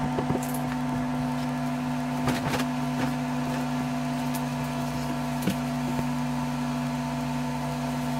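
Window air conditioner running with a steady hum, with a few soft rustles of a bedsheet being shaken out and spread over a mattress.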